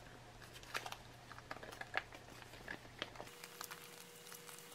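Foil MRE retort pouch crinkling and crackling in the hands as the thick saag chole with lamb is squeezed out of it onto a stainless steel tray: faint, irregular clicks and rustles.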